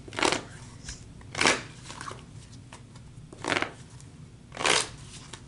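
Tarot cards handled on a cloth-covered table: four short papery rustles, a second or two apart.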